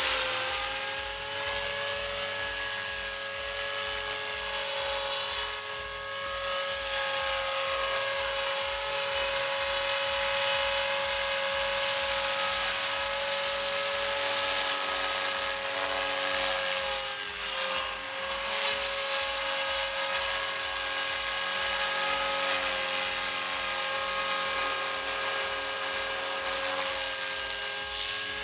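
Electric RC helicopter (Thunder Tiger Mini Titan E325 in an AH-1W Super Cobra scale fuselage) in flight: a steady high motor-and-rotor whine. The pitch dips briefly a little past halfway, then recovers.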